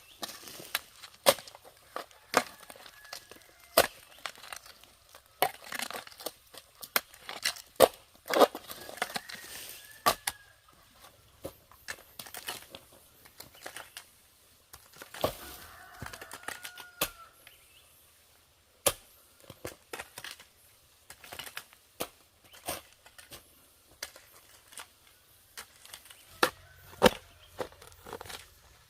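Irregular sharp knocks and crackling handling noises, with a few faint short chirps in between.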